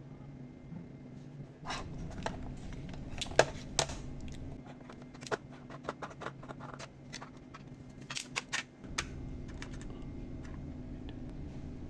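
Clicks, taps and light scraping of hands handling a plastic-cased analog multimeter and its 9-volt battery, over a low steady hum.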